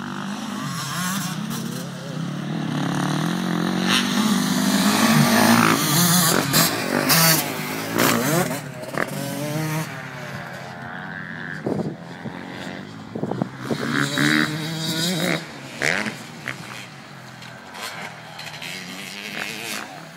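Motocross dirt bikes racing around a dirt track, their engines revving up and down in pitch as the riders go through the gears and pass. The engines are loudest about four to seven seconds in, then settle into quieter, more distant revving.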